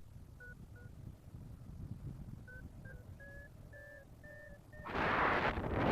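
Paraglider variometer beeping its climb tone: two short beeps, then a run of beeps coming closer together and edging up in pitch as the glider climbs in lift. A loud rush of wind on the microphone comes in near the end.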